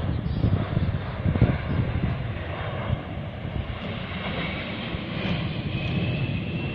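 Engine noise of an amphibious water-bombing aircraft flying low overhead: a dense rushing drone, loudest about a second in, with a thin high whine coming in about four seconds in.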